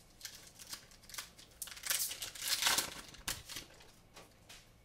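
Foil wrapper of a Pokémon card booster pack crinkling and tearing as it is opened. The loudest rip comes about two to three seconds in.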